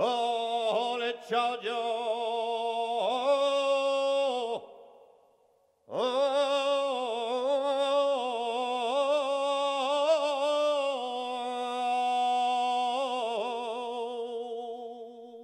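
Flamenco cante: a solo singer holds long, wavering melismatic lines with no recognisable words and no accompaniment. The first phrase lasts about four and a half seconds; after a short pause a longer second phrase follows and fades away near the end.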